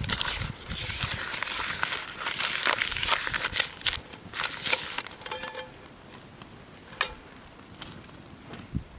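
Crinkling and rustling with many small clicks for about four seconds, then quieter with a few sharp ticks and a brief squeak.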